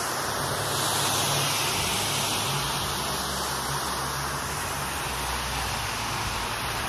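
Electric rotary floor machine running, its brush scrubbing a wet, foamy rug: a steady low motor hum under a constant hissing swish.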